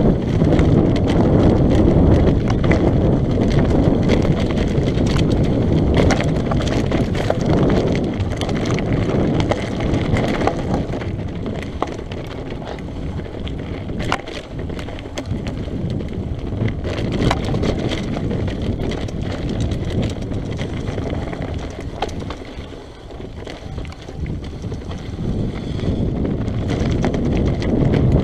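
Mountain bike descending a loose, rocky trail: tyres crunching over gravel and stones, with many small knocks and rattles as the bike jolts over rocks, and wind rushing over the microphone. It eases for a few seconds a little past the middle, then picks up again.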